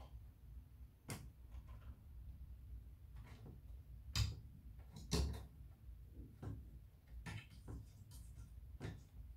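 A cat pawing and clawing at the shut door of a wooden cabinet, the door knocking and rattling in its frame, about eight knocks with the loudest two around four and five seconds in. The door is closed too tightly for the cat to open.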